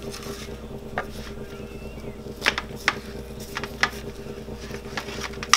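Scattered light knocks and taps as baked potatoes are picked up and handled on a metal baking sheet, over a steady low hum.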